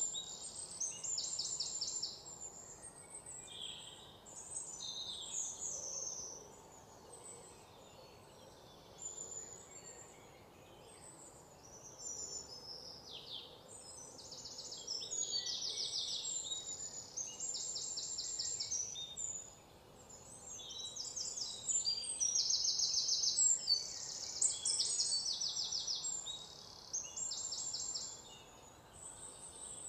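Small birds chirping and singing, with repeated rapid high trills between shorter chirps.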